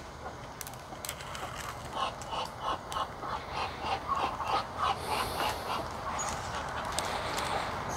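A dog panting rapidly nearby, about four quick breaths a second, for a few seconds in the middle, among a few scattered light clicks.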